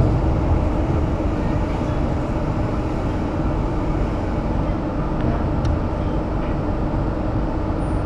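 Steady running noise inside a moving electric suburban passenger train: a constant low rumble of wheels on rail with a faint steady hum.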